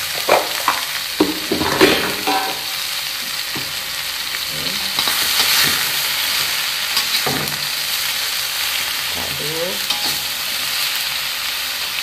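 Mushrooms sizzling in hot oil in a wok, stirred with a metal spatula that scrapes and knocks against the pan. The stirring clatter is thickest in the first couple of seconds and comes again in short spells later, over a steady frying hiss.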